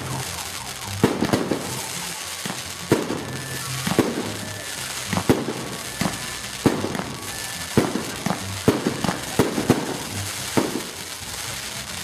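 Aerial fireworks bursting in an irregular series of sharp bangs, roughly one a second, over a steady background din.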